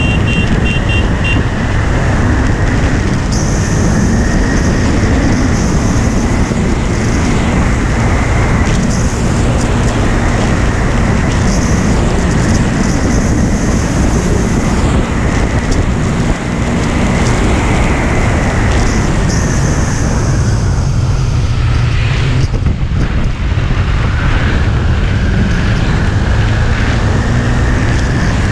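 Motorcycle riding at speed, recorded from a handlebar-mounted camera: heavy wind noise rushes over the microphone, and a KTM Duke 390's single-cylinder engine runs underneath. The engine note rises and falls, thinning briefly about three-quarters of the way through before picking up again.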